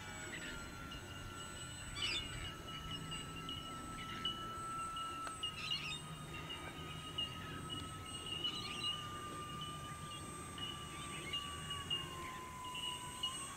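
Twin-propeller RC model floatplane in flight, its motors giving one faint steady whine that slowly drops in pitch as it descends. Birds chirp briefly a few times over it.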